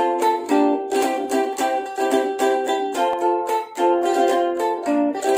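Ukulele strummed in a steady rhythm, chords changing every second or so, as the instrumental introduction before the singing begins.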